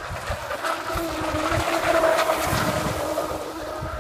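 Radio-controlled speedboat's motor running at speed, a steady high whine that grows louder toward the middle as the boat comes closest, then eases off.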